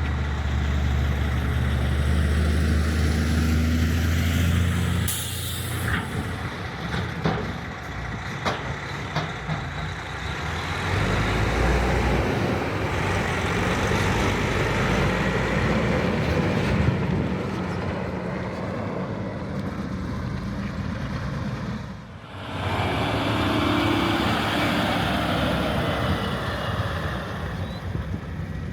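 Silage trucks' engines running as they drive and pull up, with a short air-brake hiss about five seconds in; the engine sound shifts several times.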